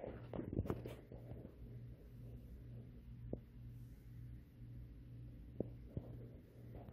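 Quiet room tone: a low hum that pulses on and off, with a few soft clicks and knocks of the phone being handled, several in the first second, then one here and there.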